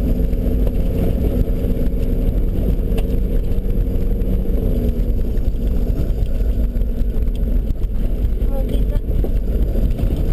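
Steady low rumble of a Nissan Patrol GR Y61 4x4 heard from inside the cabin as it drives slowly over a rough gravel and dirt track: engine drone mixed with tyre and suspension noise from the stony surface.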